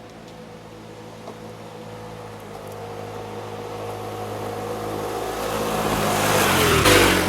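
A motor vehicle engine approaching and growing steadily louder, then passing close by about seven seconds in, its pitch dropping as it goes past.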